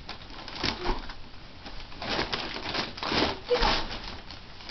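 Wrapping paper rustling and tearing in several bursts as a present is unwrapped by hand, with a toddler's brief vocal sounds mixed in.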